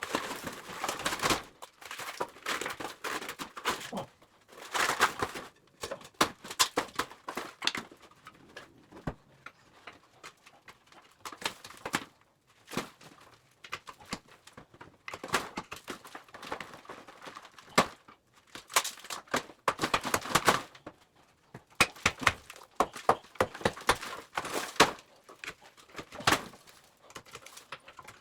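Hand demolition work: irregular knocks, clatter and scraping noises, coming in bunches with short pauses between them.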